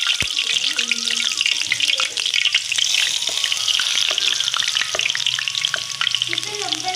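Strands of besan sev frying in a kadhai of hot oil: a steady sizzle with constant small crackles as fresh dough drops through the perforated sheet into the oil.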